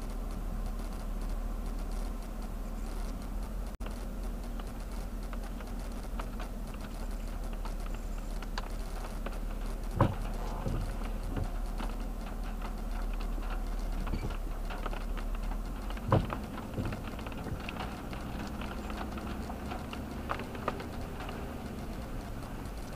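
Inside a car creeping along a wet road: a steady low rumble and hum with scattered light tapping, and two sharper knocks, one about ten seconds in and one about sixteen seconds in.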